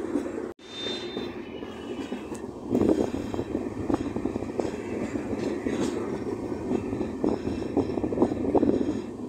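Moving passenger train: a steady rumble of wheels on the rails with frequent irregular clattering knocks, louder from about three seconds in. A brief drop-out comes just after half a second.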